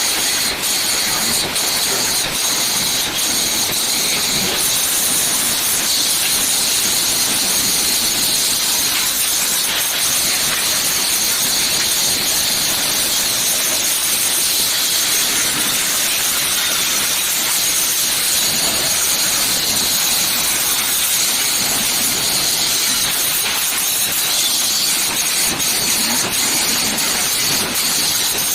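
Angle grinder grinding the welds on a steel cage, a steady, unbroken high hiss with a high whine through it.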